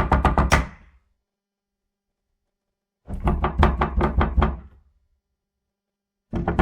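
Knocking on a door in quick bursts of many rapid knocks: a burst dying away just after the start, a run of about ten knocks about three seconds in, and another burst starting near the end.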